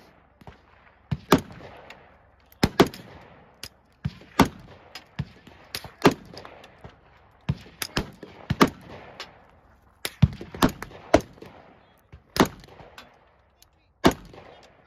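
AR-15 style semi-automatic rifle firing single shots at a steady pace, about ten sharp cracks roughly a second and a half apart, with fainter shots in between.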